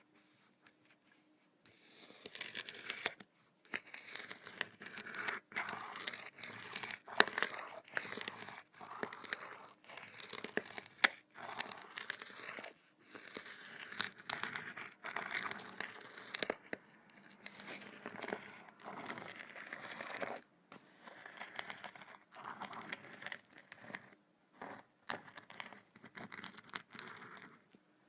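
Kinetic sand being handled, crumbling and crunching in bursts of a second or two with brief pauses between them and occasional sharp clicks, starting about two seconds in.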